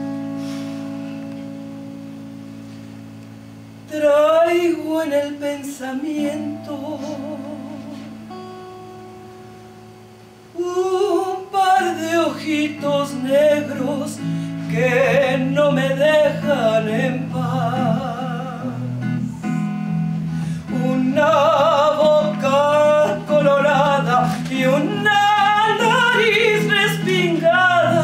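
Woman singing with a wide vibrato, accompanied by an archtop guitar. A held guitar chord rings and fades first. The voice comes in about four seconds in, stops briefly while another chord dies away, and from about ten seconds in she sings on steadily over the guitar.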